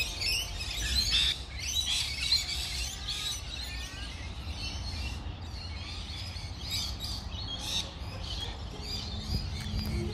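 Small wild birds chirping and twittering, busiest in the first few seconds and thinning out after, over a low steady rumble of outdoor background noise.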